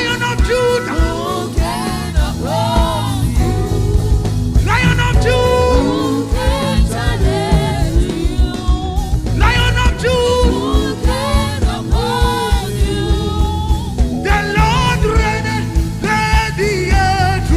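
Live gospel worship music: a singer's voice over a band with a steady drum beat.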